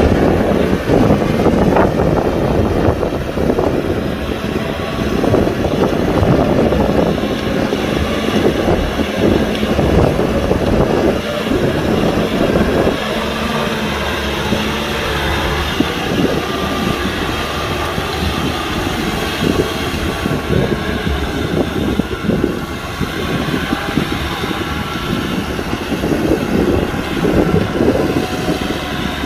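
Kubota tractor's diesel engine running steadily under load while plowing.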